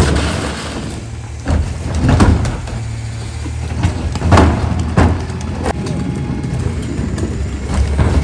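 Rear-loader garbage truck running at idle, a steady low hum, while plastic wheeled trash carts are tipped into its hopper by the rear lifter. About six bangs and clatters of carts and lids striking the truck, the loudest about two and four and a half seconds in.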